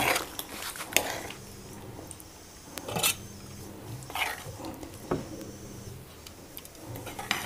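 Metal spatula scraping and clinking against a steel pan and plate as thick paneer gravy is stirred and scooped out. There are a handful of separate short strokes, roughly a second apart.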